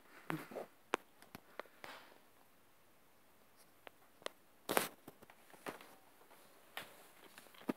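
Faint scattered taps and rustles of footsteps and handling, with one louder rustle about five seconds in.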